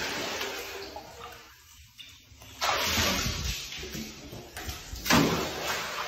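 Bathtub water splashing and sloshing as a rat swims in it, in three swells: one at the start that fades over about two seconds, another about two and a half seconds in and a third near the end.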